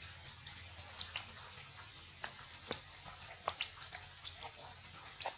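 Baby long-tailed macaque eating chopped fruit from a metal tray: faint, irregular chewing and lip-smacking clicks, a few of them sharper.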